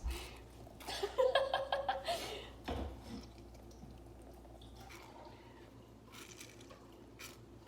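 A lemon being squeezed by hand, juice dripping, with a short laugh about a second in and a single knock just before three seconds.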